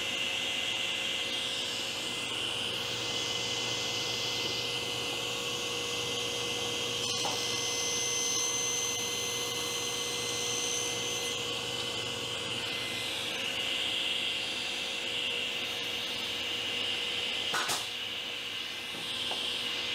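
Table saw running steadily through a short crosscut session, with a sharp click about seven seconds in and a couple of knocks near the end.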